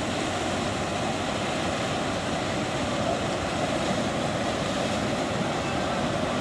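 Steady rushing noise of a passing river passenger motor ship, its engine and the wash along its hull blended together with no distinct engine tone.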